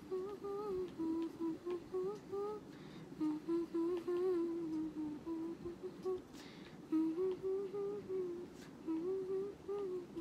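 A woman humming a wordless tune in short phrases, with brief pauses between them.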